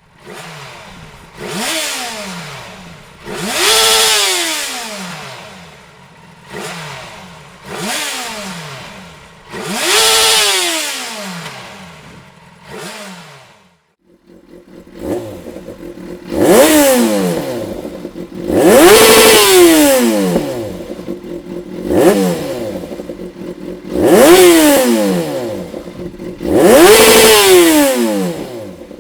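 Yamaha FZ6 Fazer's 600 cc inline-four revved repeatedly from idle through its exhaust. Each blip rises and falls over about two seconds. About halfway through the recording changes: the revs become louder, with a steady idle between them.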